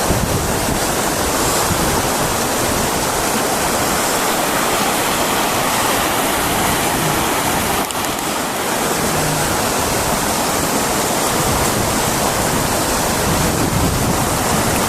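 Steady rushing of river water, with some wind buffeting the microphone.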